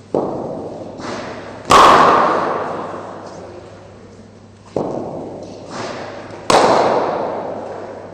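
Cricket ball impacts in an indoor net: two rounds of three sharp knocks, the third in each round the loudest crack, each ringing on in a large echoing hall.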